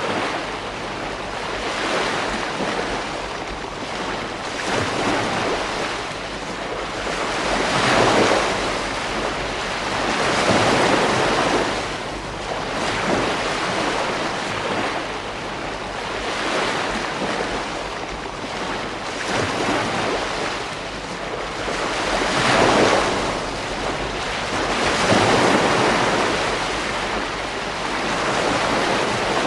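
Ocean surf breaking and washing onto a beach: a continuous rush of water that swells and falls every few seconds, with several louder surges.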